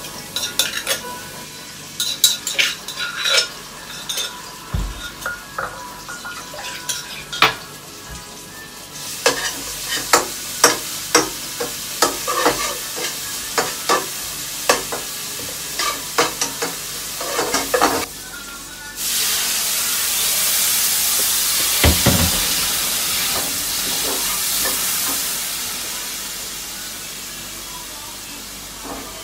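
Utensils clicking and knocking against a mortar and a frying pan, then about two-thirds of the way in a loud sizzle breaks out as garlic and red chillies go into hot oil, fading over several seconds.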